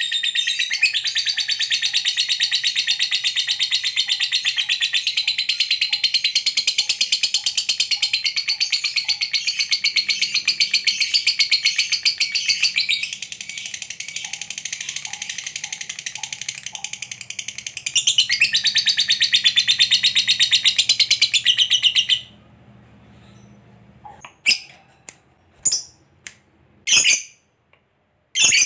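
Lovebird chattering in a long ngekek: a continuous, rapid, high-pitched rattling trill for about twenty seconds, softer for a few seconds midway. It stops abruptly and gives way to a few short sharp squawks.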